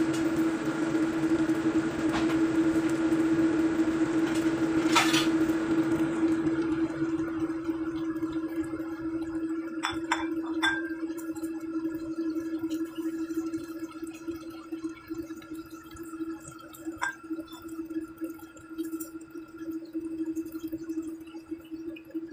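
Salmon steaks sizzling as they fry in their own fat in a nonstick wok, the sizzle dying down after about six seconds, over a steady hum. A few sharp clicks of a utensil against the pan.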